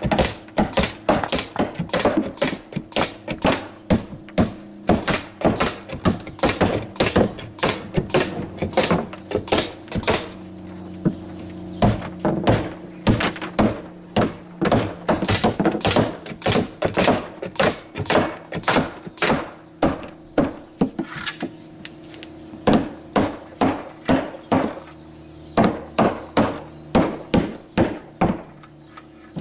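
Hammers striking nail heads into a plywood roof deck, a steady stream of sharp blows about two or three a second, with more than one hammer at work. The nails are being driven flush because the pneumatic nailer left them standing proud.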